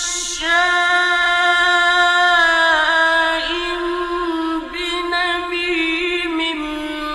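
A man's solo voice chanting the Quran in a slow, melodic recitation, holding long ornamented notes at a high, steady pitch with a few turns and a step down in pitch near the end, from an old radio recording.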